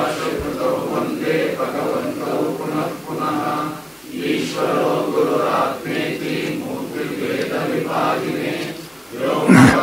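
Male voice chanting, a steady recitation in long phrases broken by brief pauses for breath. A sudden loud knock comes near the end.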